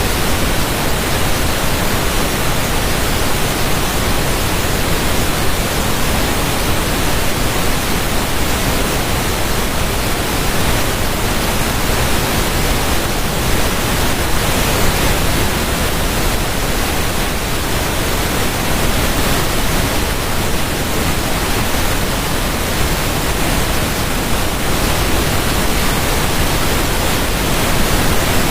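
Steady rushing water: a dense, even hiss that doesn't change.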